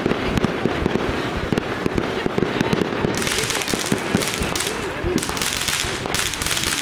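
Aerial fireworks going off: a dense run of booms, pops and crackles in quick succession, with a higher crackle joining about three seconds in.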